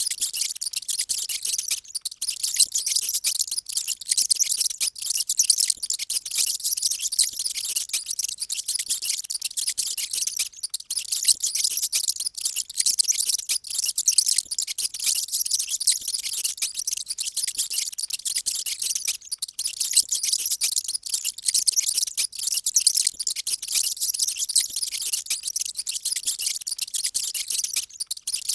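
Many mice squeaking at once: a dense, loud, high-pitched chatter of overlapping squeaks that never lets up.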